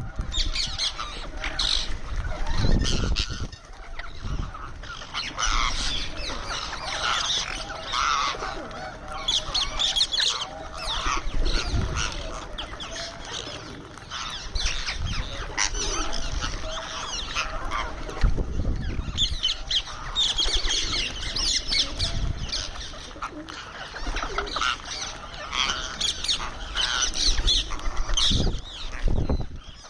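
Indian ringneck parakeet calling over and over with short squawks and chatter while eating, along with a few low rumbles.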